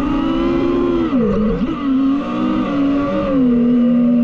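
DJI FPV drone's motors and propellers whining, the pitch rising and falling with the throttle: it drops sharply for a moment about a second in, comes back up, and settles slightly lower near the end.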